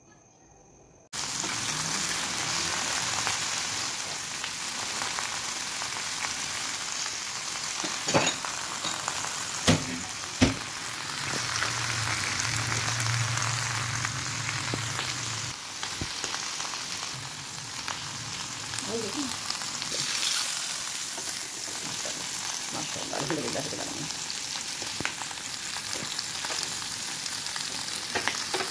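Spiced mutton legs sizzling in hot oil in a flat pan, a steady dense hiss that starts suddenly about a second in. A few sharp knocks come about a third of the way through.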